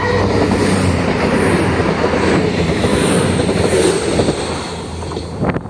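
CrossCountry Voyager diesel multiple unit passing close by: a loud, steady rush of underfloor diesel engines and wheel-on-rail noise, with a few sharp clicks near the end.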